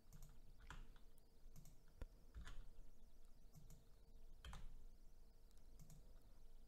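Faint computer keyboard key presses and mouse clicks, about half a dozen scattered single clicks, over a faint steady hum.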